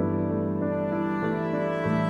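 Background music: soft, slow instrumental chords held and changing every half second or so, with a mellow horn-like tone.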